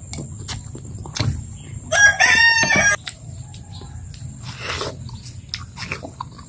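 A rooster crowing once, about a second long, roughly two seconds in. Around it, small clicks and mouth noises of someone eating watermelon.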